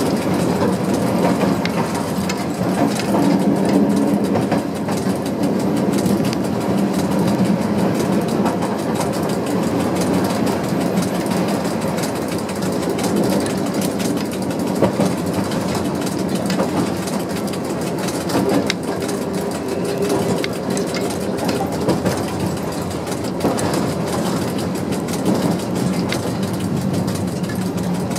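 ČD class 731 diesel locomotive running along the line, its engine drone and the rumble of its wheels on the rails heard from atop its hood, with many scattered sharp clicks.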